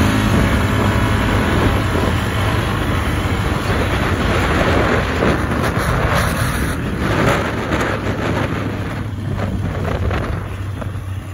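ATV engine running steadily under way across rough grass, with wind rushing over the microphone.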